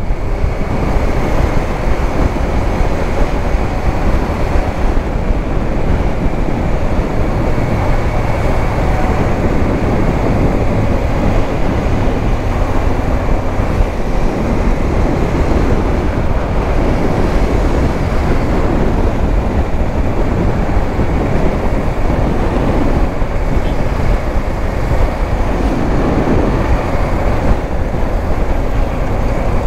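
KTM 390 Adventure motorcycle being ridden: a steady, loud rush of wind and engine noise that holds even throughout.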